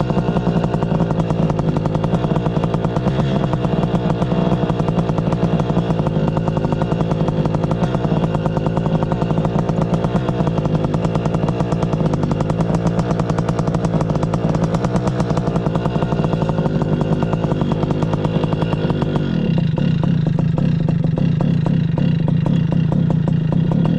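Air Conception Nitro 200 paramotor's two-stroke engine and propeller running steadily with a fast, even pulse. Its note changes about 19 seconds in, with the deepest rumble dropping away and the level rising slightly, as with a throttle change.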